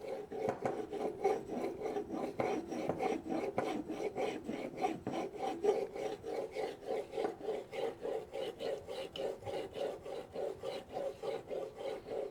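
Knife blade being stroked back and forth on a whetstone: a steady rhythm of gritty scraping strokes, about three to four a second, that stops just after the end.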